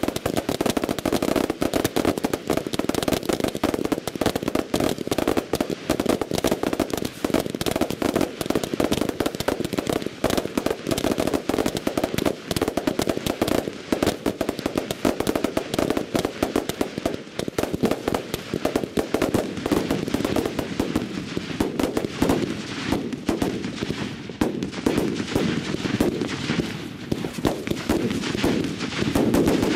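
Daytime fireworks barrage: a dense, machine-gun-fast rattle of firecracker bangs from ground-fired pyrotechnics that runs on without a break, thinning a little about two-thirds through and building again near the end.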